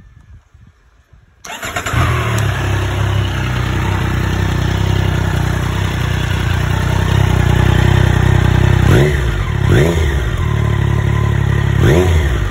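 Triumph Street Triple 660 S inline three-cylinder motorcycle engine starting about a second and a half in, then idling steadily. In the last few seconds there are three short throttle blips, each rising and falling quickly.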